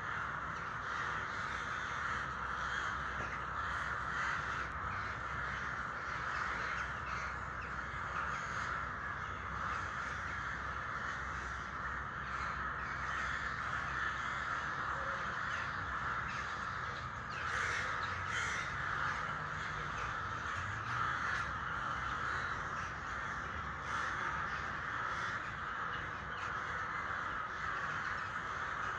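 A huge flock of crows cawing all at once: a dense, continuous chorus of overlapping caws with no pauses.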